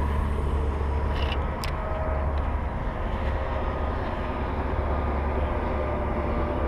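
Steady rumble of highway traffic passing, with a couple of short sharp clicks about a second and a half in.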